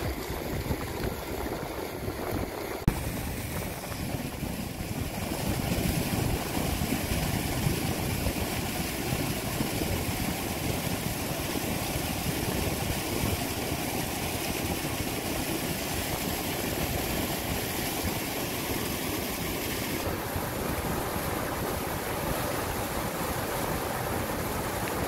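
Sea surf breaking and washing over a rocky, pebbly shore: a steady rush of waves.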